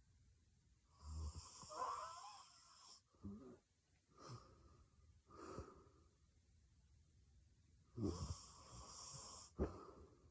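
A young woman snoring heavily in her sleep: two long, rattling, hissing snores, one about a second in and one near the end, with a few shorter breaths between. A brief sharp click comes near the end.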